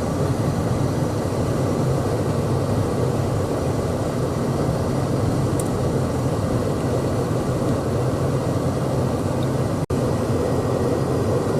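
Pickup truck driving, heard from inside the cab: steady engine and road noise with a constant low hum. The sound drops out for an instant near the end.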